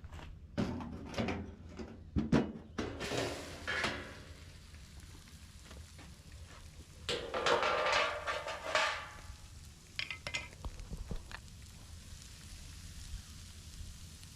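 Metal clattering and scraping as a small methylated-spirits fish smoker is handled, with a busier stretch of clatter and hiss about seven seconds in and a few light clicks after.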